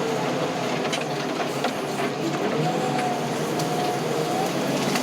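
Heavy land-clearing machine's engine running steadily, with a whine that wavers up and down in pitch and a few faint clicks.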